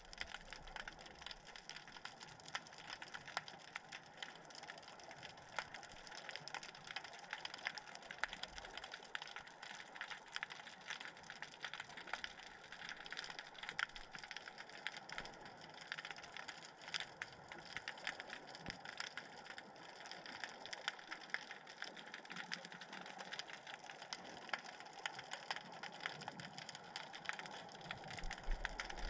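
Steady underwater crackle made of many tiny, rapid clicks, with no single louder event.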